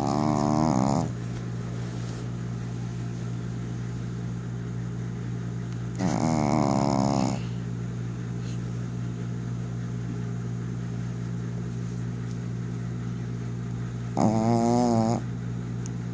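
Snoring from a sleeper: three snores about seven seconds apart, each about a second long and wavering in pitch, over a steady low hum.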